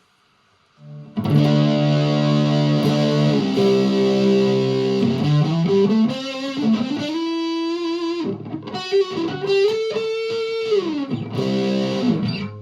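Electric guitar played through a Behringer OD300 overdrive pedal with its mode and drive knobs turned all the way up, into a Vox MV50AC amp. It gives a heavily distorted sound: held chords begin about a second in, followed by sustained notes bent up and down in pitch, with a short break, and it ends on a chord.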